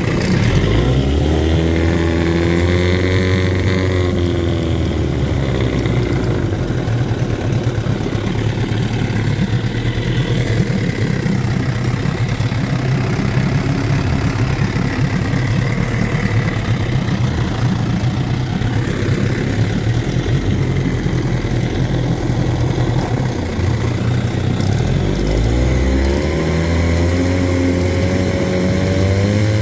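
1964 Johnson 9.5 hp short-shaft two-stroke outboard motor running warm in a test tank with its cowling off. Its engine speed rises and falls in the first few seconds and again near the end, and it runs steadily in between.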